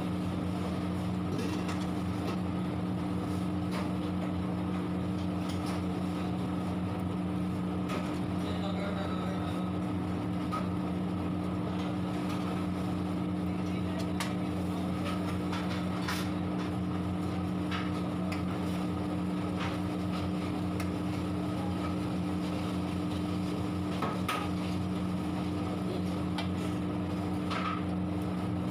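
A metal ladle scraping and tapping against a large kadhai while fried onions and masala are stirred in oil, giving scattered short clicks over a steady low machine hum.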